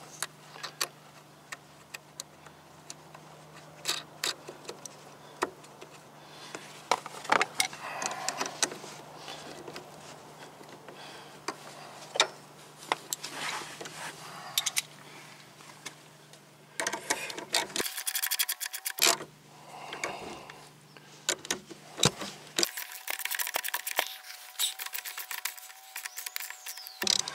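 Scattered clinks and taps of small metal parts and hand tools, then a socket ratchet clicking rapidly in two runs, about 18 seconds in and again through the last few seconds, as a nut is run down onto a GM battery cable clamp's stud.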